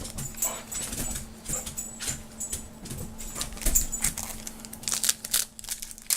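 Trading cards being flipped through and slid in the hands: a string of irregular short rustles and clicks over a steady low hum.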